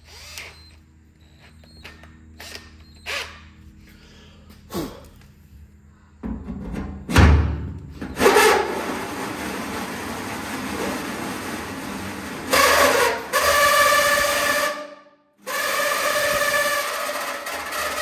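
Power drill boring into the metal top of a fuel tank. A few light knocks come first; about six seconds in the drill starts and then runs steadily with a whine, stops briefly near fifteen seconds, and runs again.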